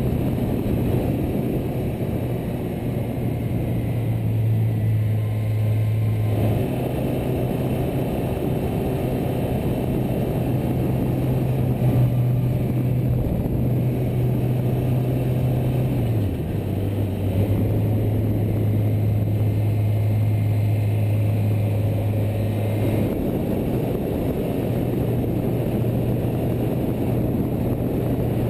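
Suzuki GSX-R600 inline-four engine running at steady cruising revs, heard over heavy wind rush. Its note jumps to a new pitch three times.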